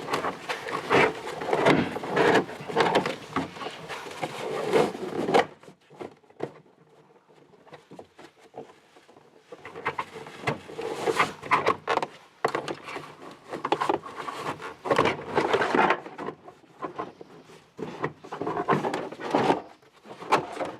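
Car trunk side trim panel being worked loose and pulled out by hand: a busy run of rubbing, scraping and knocks, a quiet pause of a few seconds, then more knocks and rubbing from about ten seconds in.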